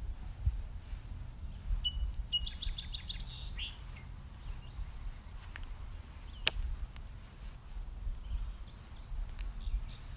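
A bird chirping a quick run of about eight high notes about two seconds in, with a few fainter chirps near the end. Under it runs a low handling rumble, with one sharp click about six seconds in, as a spatula smooths soft cheesecake filling in a metal pan.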